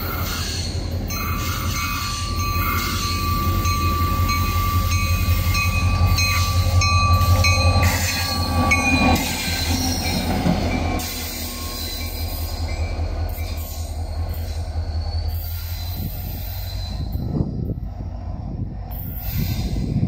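EMD SD40 diesel locomotive passing close by: a heavy diesel rumble that builds to its loudest just before the locomotive goes past, with a thin steady wheel squeal for several seconds. About halfway through the rumble drops away and quieter rail noise is left as the locomotive moves off.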